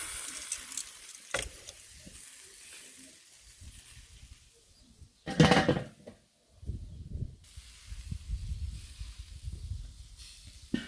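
Lamb chops sizzling faintly on a charcoal kettle grill, the hiss fading over the first couple of seconds. About halfway through there is one loud clatter as the grill's steel lid is handled.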